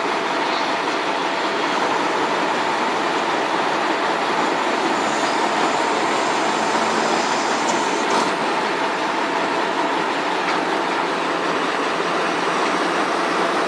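Truck-crane diesel engines running steadily during a heavy lift, a continuous mechanical rumble, with a faint high whine partway through.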